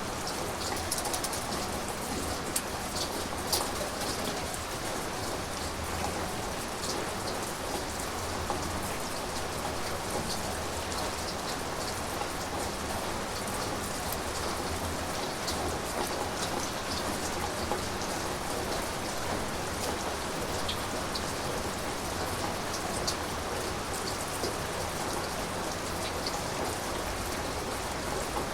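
Steady rain falling, an even hiss peppered with many sharp ticks of individual drops striking a hard surface close by.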